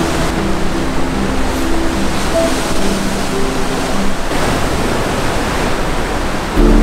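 Sea surf: waves breaking on and washing around shoreline rocks, a steady rushing wash. Soft background music plays over it and grows louder near the end.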